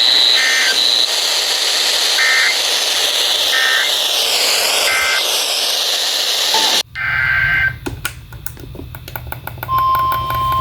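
NOAA Weather Radio receiver audio over loud static hiss. Four short two-tone digital data bursts, the SAME end-of-message code, are heard. The static then cuts off abruptly and another data burst follows. About a second before the end the steady 1050 Hz weather radio alert tone starts.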